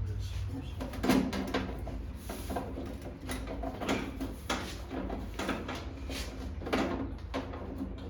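Irregular clicks, knocks and rattles of hard parts being handled and fitted together by hand, over a low steady hum.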